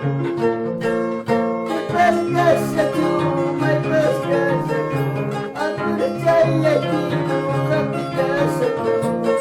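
Peruvian harp playing a plucked melody over a repeating bass line. A higher, wavering melody line joins about two seconds in.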